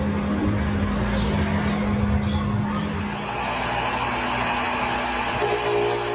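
A woodworking power tool's motor running with a steady hum. Its sound changes about three and a half seconds in, and again near the end, when a higher steady tone and more hiss come in.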